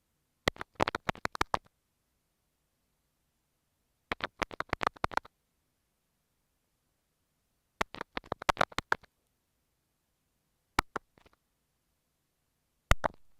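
Kinetic sand slime pressed and squished on an earphone microphone: three bursts of sticky crackling clicks, each about a second long, a few seconds apart, then two single pops near the end.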